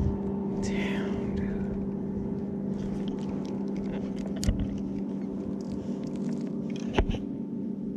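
Fishing kayak's electric motor humming steadily, with a few light clicks and ticks from the spinning reel and rod being worked.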